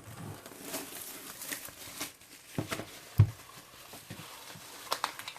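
Hands handling a vinyl LP in its cardboard jacket and packaging: soft rustling with light clicks and taps, and one dull thump a little past the middle.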